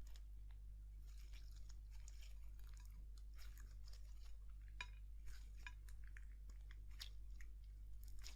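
Slime being squished and worked, giving faint irregular sticky crackles and pops over a steady low hum.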